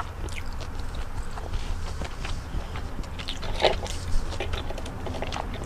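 Chewing of crispy fried chicken-skin chicharon: irregular crunching and crackling clicks.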